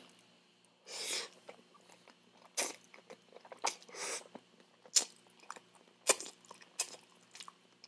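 Close-miked eating sounds: spaghetti noodles slurped in, with wet chewing and a handful of sharp mouth clicks and smacks.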